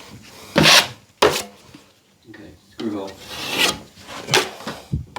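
Steel taping knife scraping cornice cement (hot mud) across a drywall patch: a series of about six short scraping strokes.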